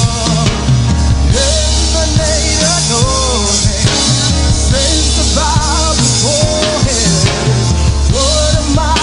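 Live gospel praise-break music from a band: drum kit and a heavy bass line under a wavering melody line, steady and loud.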